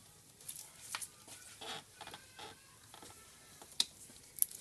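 Rubber fuel hose being pushed and worked onto the barbed fitting of an inline fuel pressure gauge adapter by gloved hands: a series of small, irregular squeaks and clicks, with a sharper click near the end.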